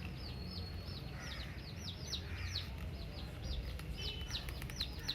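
Birds chirping: a rapid series of short, high chirps that fall in pitch, several a second, over a low steady hum. A few quick clicks come about four seconds in.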